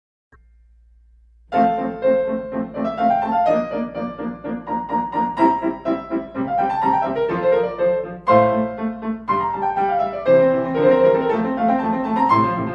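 Outro music led by piano, entering about a second and a half in after a brief near-silent stretch with a low hum, with a flowing melody over chords.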